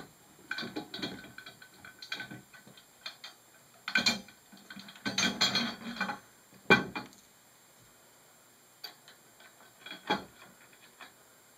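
Irregular metallic clicks, clinks and knocks as aluminium extrusion frame pieces and a bearing rail carriage plate are handled and fitted together, with the sharpest knock a little past halfway and a few lighter taps near the end.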